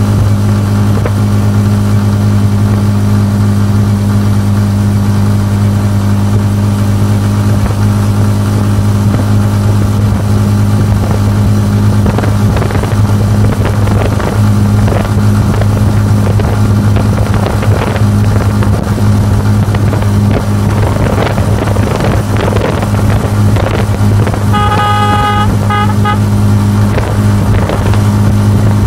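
Motorcycle rickshaw engine running steadily at cruising speed, with body rattles over the road. A horn honks in a short burst of beeps near the end.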